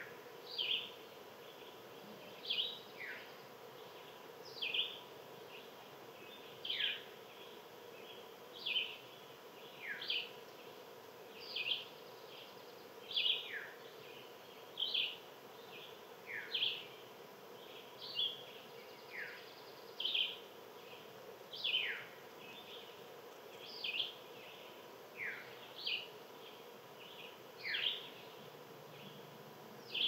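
A small animal giving short, high chirps again and again, about one every second or two, several sliding quickly downward.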